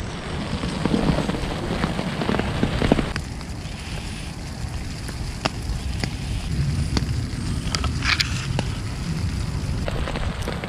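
Wind buffeting the camera's microphone as a steady low rumble, with falling wet snow ticking in scattered light taps on and around the camera, and a brief crackly patch about eight seconds in.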